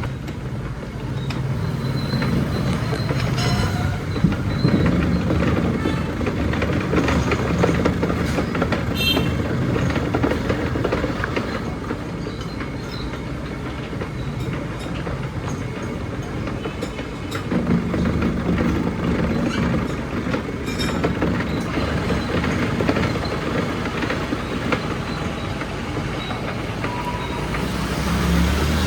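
Workshop machinery running with a steady rumble and rattling clatter, with a few sharp metallic clicks along the way.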